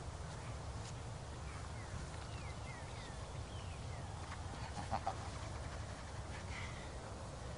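Steady low wind rumble on the microphone, with a run of short, falling bird chirps from about one and a half to three and a half seconds in.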